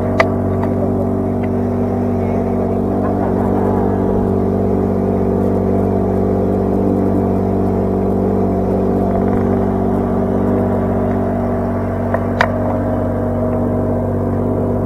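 A small boat's engine running steadily at cruising speed, with water rushing past the hull. Two sharp knocks, one just after the start and one about twelve seconds in.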